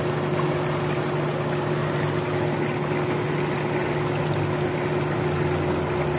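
Steady drone of the motor at a small hydroelectric plant near the river, a constant low hum with a higher steady note above it, unchanging throughout. Beneath it runs an even rushing noise of river water.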